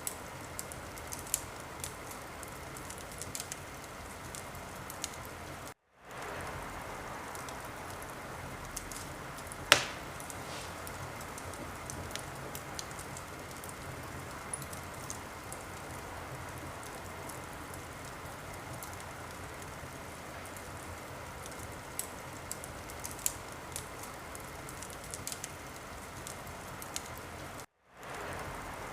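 Wood fire in a fireplace crackling over a steady hiss, with scattered small pops and one sharp, much louder pop about ten seconds in. The sound cuts out for a split second twice.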